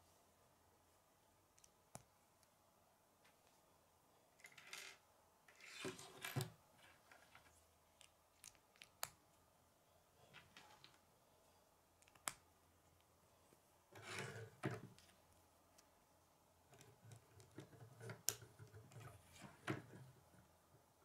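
Faint clicks and rubbing of plastic K'nex pieces being handled and snapped together. There are a handful of sharp single clicks spread out, with short bursts of rustling in between.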